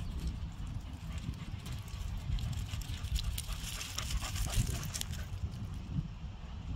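Footsteps crunching on loose wood chips, a quick run of short crackling steps that is densest in the middle and thins out near the end, over a low steady rumble.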